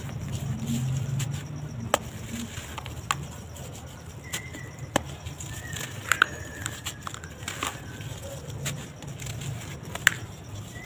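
Dry sand-cement lumps crushed and crumbled by hand into loose powder: irregular crisp crunching and crackling, with sharp cracks as pieces break, the loudest about two, three, six and ten seconds in.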